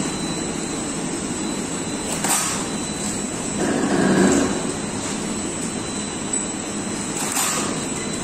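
Automatic oil filling and capping machine running: a steady mechanical hum with a thin high whine, a louder swell about four seconds in, and sharp clicks about two seconds in and again about seven seconds in.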